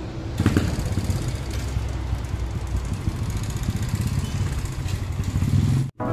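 Small underbone motorcycle engine running, louder from about half a second in as the bike is given throttle and ridden off slowly. The sound cuts off suddenly near the end.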